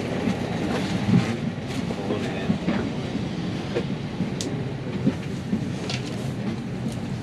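Inside an Airbus A320neo cabin during boarding: a steady low hum, with murmured passenger voices and scattered short clicks and knocks.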